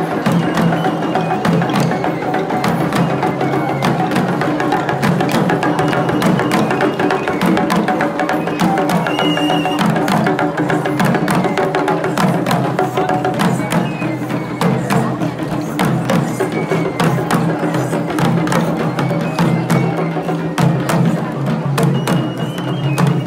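Traditional Sri Lankan procession drumming from a passing troupe of drummers and dancers: quick, sharp drum strokes in a continuous rhythm over a sustained layer of pitched tones.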